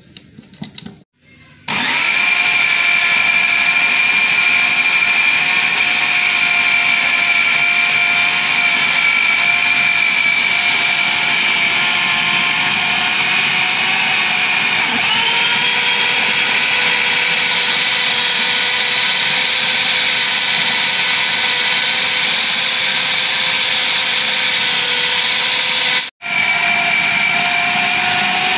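Electric food processor running, chopping raw beef mince with spices and onion into a paste. A few clicks as the lid goes on, then the motor starts about two seconds in with a steady whine that steps up in pitch about halfway through as the speed knob is turned, and cuts out for a moment near the end.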